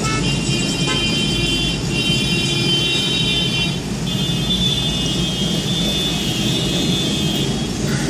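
Heavy road-traffic noise from cars and a motorcycle idling and creeping close by in a jam: a steady low engine rumble, with a high steady whine over it in two stretches that breaks briefly about halfway through.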